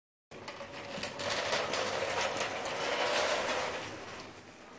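Metal tools rattling and clicking in a fast, dense clatter that starts suddenly and fades out near the end.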